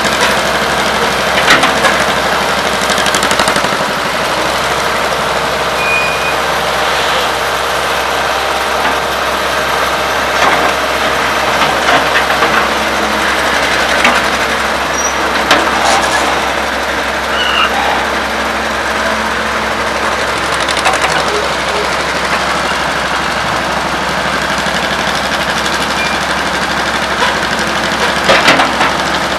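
Old diesel excavator and truck engines running steadily, with scattered metallic clanks and knocks as a Weserhütte Pionier cable shovel works its bucket and dumps a load into a tipper truck.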